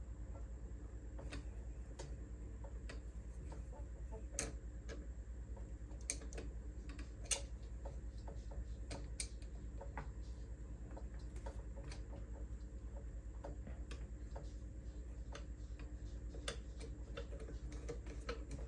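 Irregular small metallic clicks and taps as the presser foot of an old Singer vibrating shuttle sewing machine is loosened and reset by hand, over a steady low hum.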